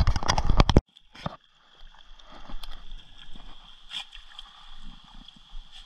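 Shallow stream water running and gurgling, with occasional small splashes from a dog wading in it. The clip opens with a brief loud rattling noise that cuts off sharply.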